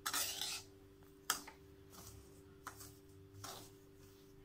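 A metal spatula stirring roasted semolina in a kadai: a short scrape at the start, then a few scattered knocks of the spatula against the pan, over a steady low hum.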